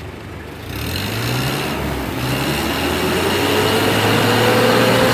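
Mitsubishi L300's diesel engine being revved. The revs pick up about a second in and keep climbing, with a rising whine, as the engine is run up to check for black smoke after a fuel-saver device was fitted.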